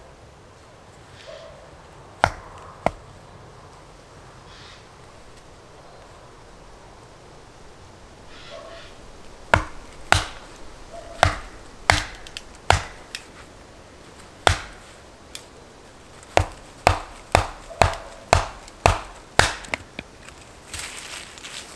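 Hatchet chopping and splitting small pieces of firewood on a log chopping block: sharp wooden knocks, two about two seconds in, then after a pause a run of about fifteen chops, one or two a second.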